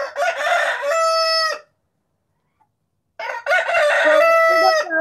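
Recorded rooster crowing twice, played back: a first cock-a-doodle-doo lasting about a second and a half, then a second crow starting about three seconds in.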